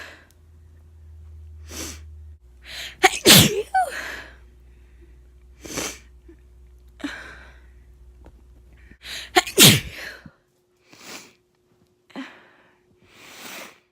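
A run of wet sneezes from someone who is sick. Two loud sneezes come about three and ten seconds in, with several softer ones between and after.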